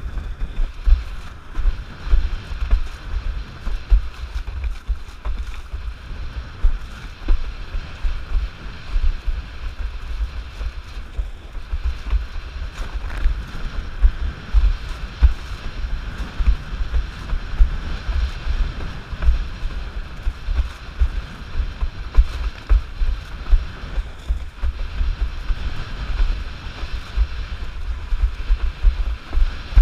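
Wind buffeting the microphone in irregular gusts over a steady hiss of water and spray as a Starboard 94 windsurf board planes fast across choppy water.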